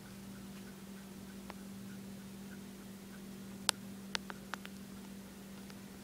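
Dayton 56-inch heavy-duty commercial ceiling fan running, its motor giving a steady low hum with a faint light tick repeating about twice a second. A handful of sharp clicks come a little past halfway.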